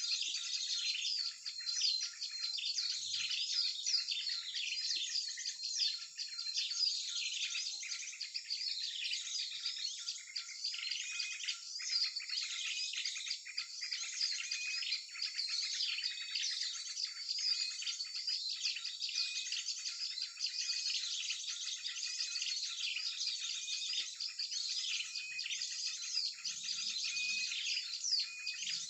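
Mixed small-bird lure recording: a dense, continuous chorus of many small birds chirping and twittering at once, fast high calls overlapping without a break.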